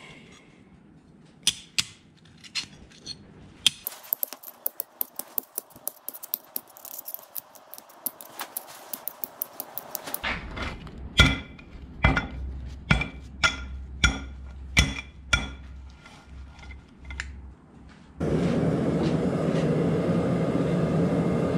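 Thin steel plates clinking lightly as they are stacked one on another, a run of short sharp clicks that grows denser and louder. About eighteen seconds in, this gives way abruptly to the steady roar of a gas forge burner running.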